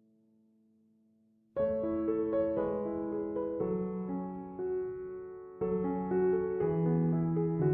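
Background piano music: a faint held tone, then a piano melody with chords that comes in suddenly about a second and a half in, with a new phrase starting near the two-thirds mark.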